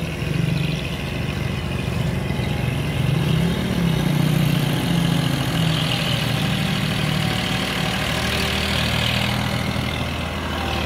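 Diesel farm tractor engine running steadily as it pulls a trolley piled with sugarcane.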